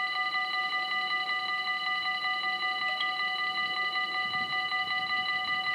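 Dutch level crossing bells ringing steadily with rapid, even strokes while the crossing is closed, a bright ring of several fixed pitches.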